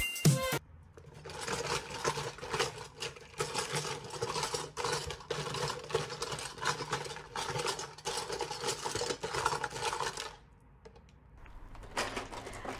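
Toys and small plastic objects being rummaged through: many irregular knocks, clatters and scrapes that stop about ten seconds in.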